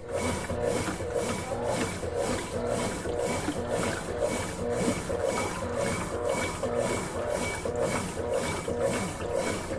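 Consul Facilite 11 kg top-loading washing machine in its wash cycle, churning the clothes back and forth in the water with an even rhythmic swish about two to three times a second, over the hum of its motor.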